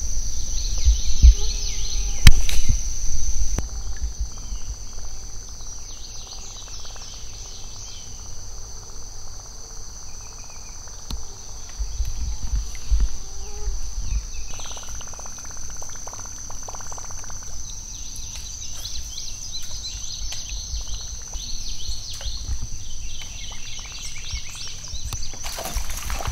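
Steady, high-pitched drone of summer insects, with scattered bird chirps. Low thumps and rumble in the first few seconds, and a burst of splashing water near the end.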